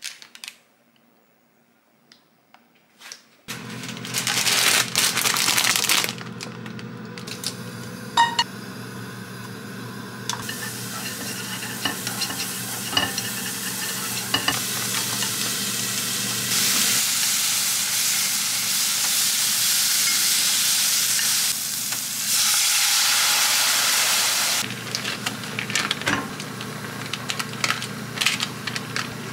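Food sizzling in a pot on a gas stove while wooden chopsticks stir it and tick against the pan, over a steady low hum. It starts about three seconds in, after near quiet, and swells louder in a few long stretches.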